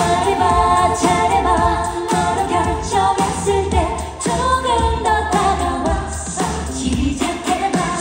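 Live pop song: a woman singing into a handheld microphone over an amplified band or backing track with bass and a steady drum beat.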